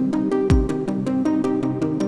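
Electronic background music with a steady beat of sharp hits over held synth notes, and a deep kick drum about half a second in.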